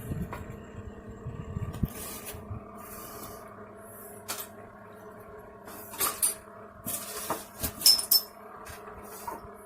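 Handling of a smashed bass guitar on the workbench: scattered knocks and clicks, with a few sharp metallic clinks about six to eight seconds in, over a steady low hum.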